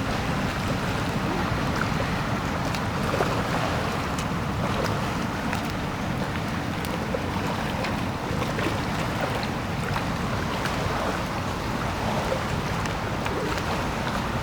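Steady wind rushing over an outdoor microphone, a constant noisy rumble with a few faint ticks.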